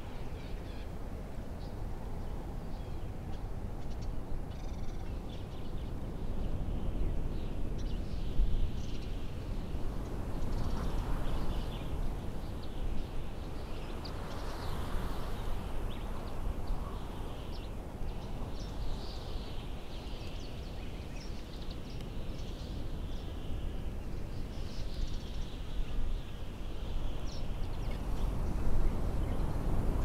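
Mountain ambience: a steady low wind rumble with birds calling on and off, short high calls scattered throughout and a couple of louder, harsher calls about a third and halfway through.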